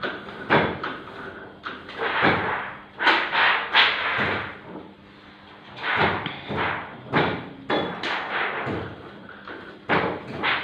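Oliver offset printing press running, giving a string of loud mechanical knocks and thumps at uneven spacing.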